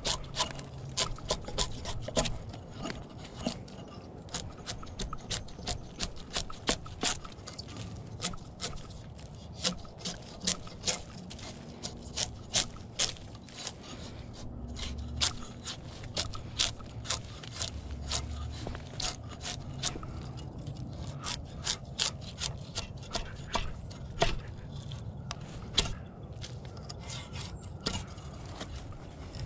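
Scraping and many irregular sharp clicks and knocks of wood and metal as a log post is handled and taken down from a log-holding vise.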